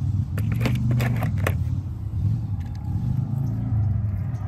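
A steady low rumble, with several sharp clicks from about half a second to a second and a half in as die-cast toy cars are handled in a cardboard box.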